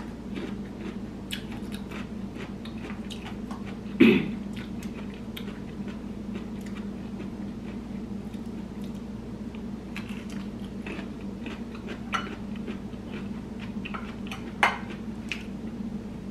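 A person chewing boiled vegetables close to the microphone, with short wet mouth clicks and crunches throughout. A few louder clicks or knocks stand out, the loudest about four seconds in. A steady low hum runs underneath.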